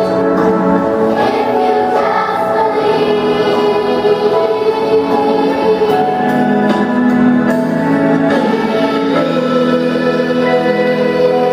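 Children's choir singing together, holding long sustained notes.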